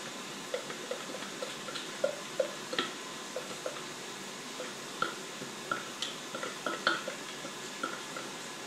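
Spatula scraping thick chili paste out of a plastic food-processor bowl into a wooden bowl: irregular light knocks and taps with a hollow ring, about two a second.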